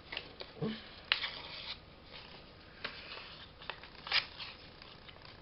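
Paper being handled and torn in a few short, quiet rips and rustles, the longest about a second in.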